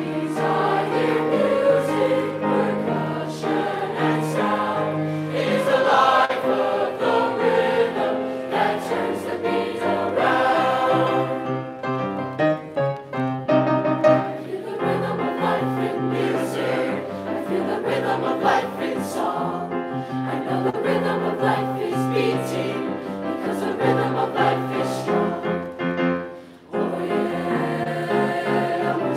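Junior high mixed concert choir of boys' and girls' voices singing a rhythmic song in parts, with upright piano accompaniment.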